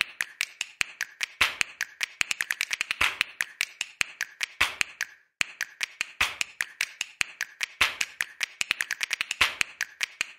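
Typing on a computer keyboard: rapid, uneven runs of key clicks, with a short pause about five seconds in.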